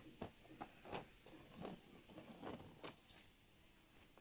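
Faint, irregular clicks and light taps of small plastic toys being handled and moved about on a tabletop.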